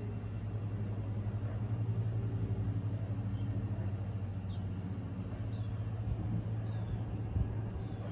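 Steady low mechanical hum from a motor or engine running. Faint short high chirps come through now and then, and there is one soft thump near the end.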